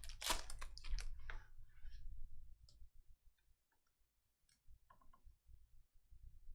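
Trading cards being handled: a few quick sliding swishes in the first second and a half, then scattered light clicks and taps.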